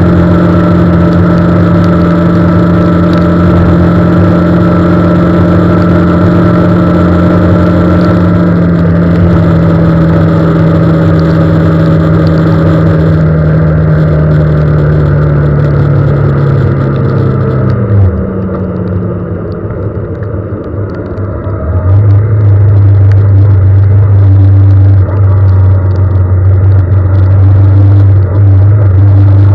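Vehicle engine running on the move: a steady engine note that sinks in pitch as it slows, drops away about eighteen seconds in, then picks up again at a lower, steady note a few seconds later.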